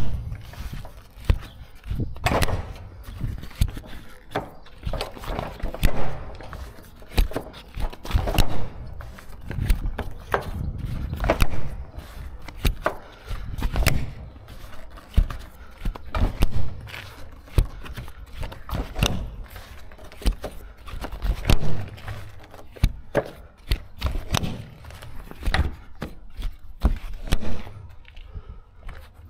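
Metal strap buckles on a curtainsider trailer's side curtain being worked by gloved hands: irregular clacks and knocks, with the heavy tarpaulin curtain rustling and scraping. Footsteps on tarmac follow near the end.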